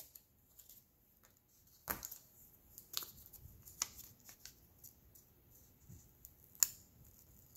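Scissors and a small paper sticker being handled: a sharp snip about two seconds in, then scattered soft clicks and light paper rustles as the sticker is worked and its backing peeled.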